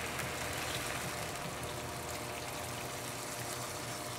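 Water poured from a glass measuring cup into a hot wok of frying tofu and soy-sauce glaze, a steady trickle over the sizzle of the pan.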